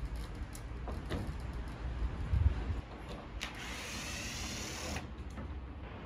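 Cordless drill-driver whirring for about a second and a half, past the middle, driving a fastener into the solar panel mounting. A few knocks come before it, the loudest about two and a half seconds in, over a low rumble of wind on the microphone.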